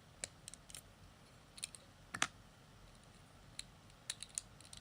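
Plastic Lego bricks clicking and clacking as a piece is handled and pressed onto the model: a scattered run of small clicks, the loudest a little over two seconds in.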